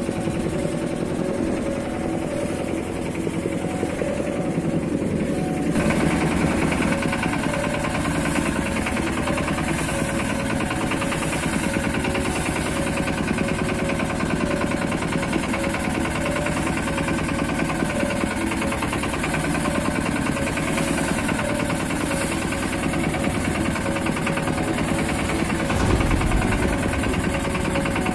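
Small fishing boat's engine running steadily with a fast, even knocking beat. The sound turns brighter about six seconds in.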